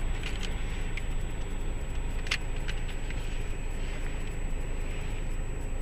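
Car engine idling, a steady low rumble heard from inside the cabin through an open window, with a few faint clicks.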